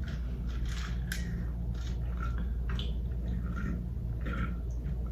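Close-up chewing and wet mouth sounds of someone eating a fried chicken sandwich, in short irregular bits, over a steady low hum.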